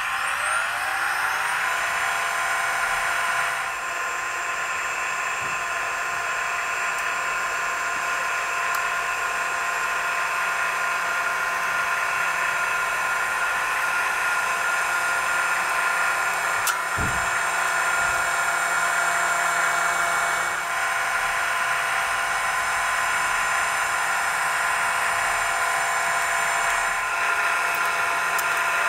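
Electric motors of a radio-controlled scale Hako street sweeper and its spinning side brushes, a steady whine over a hissing brush noise. The whine rises in pitch for the first couple of seconds as the motors spin up, then holds steady.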